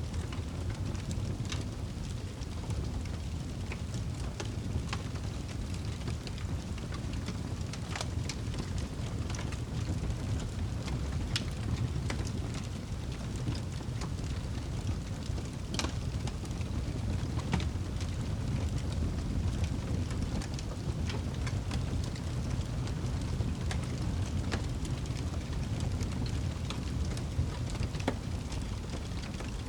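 Wood fire burning in a fireplace: a steady low rumble from the flames, with scattered sharp crackles and pops, a few of them louder.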